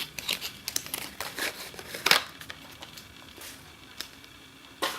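Plastic packaging being handled as the speedcube is taken out of its box: crinkling, rustling and sharp clicks. The clicks come thick for the first two seconds, with the loudest about two seconds in. After that the handling goes quieter, with one more sharp click near the end.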